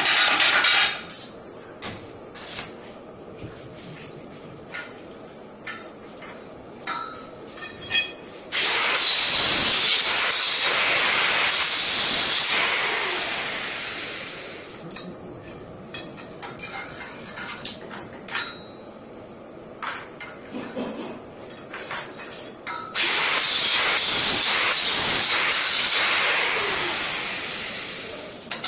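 Light metallic clinks and knocks as stainless steel railing pipes and balusters are handled and fitted, broken twice by a handheld power tool that runs loudly for a few seconds and then slowly winds down.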